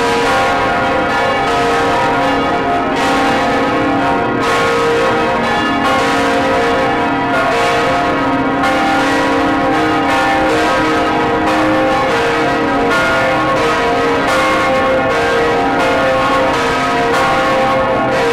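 Large swinging church bells of St. Catherine's Church, Gdańsk, tolling as a funeral knell, heard close up inside the belfry. The clapper strikes come about once a second, and each strike's hum rings on into the next.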